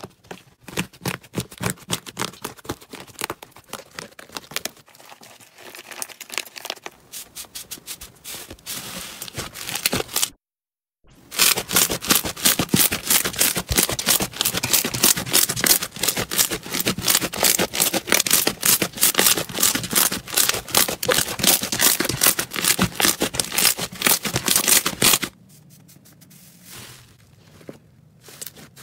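Slime being squeezed and worked by hand, giving a dense run of small crackling and clicking pops. It cuts out briefly about ten seconds in, comes back louder, and turns quieter for the last few seconds.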